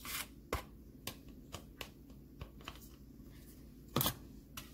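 Butter knife scooping plant butter from a plastic tub: a string of light clicks and scrapes, the loudest about four seconds in.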